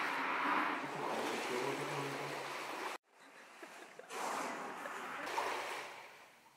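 Water sloshing and splashing in a wave tank as waves wash around a floating model platform. The sound cuts out abruptly about three seconds in, returns about a second later, and fades away near the end.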